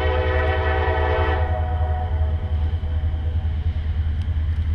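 Air horn of a CSX EMD SD40-3 diesel locomotive sounding a steady chord, cutting off about a second and a half in, leaving a steady low rumble.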